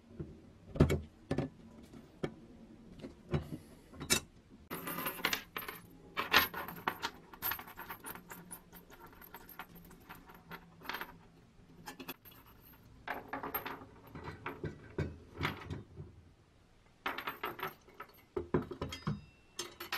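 The steel chain and metal parts of a small bear trap clinking and jingling as they are handled: scattered small clicks and clusters of metallic rattling with short pauses between.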